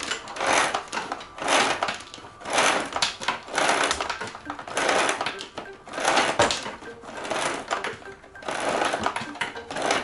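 Power cord being pulled out of a Samsung SC4520 vacuum cleaner's spring cord reel in a series of tugs, roughly one a second, each a short rasping burst.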